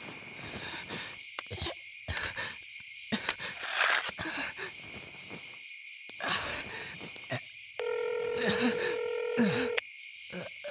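Night crickets chirping in a steady chorus, with scattered rustling and knocking in the first seven seconds. About eight seconds in, a telephone ringback tone sounds once, a steady two-second tone: a call ringing through before it is answered.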